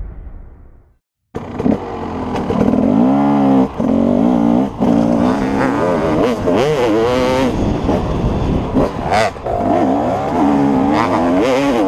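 A fading rumble dies into brief silence. Then a dirt bike's engine runs loudly, its pitch rising and falling again and again as the rider works the throttle along the trail.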